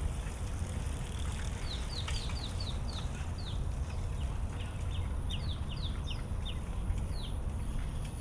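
Small birds chirping: a run of short, quick downward-sliding notes from about two seconds in, over a steady low rumble.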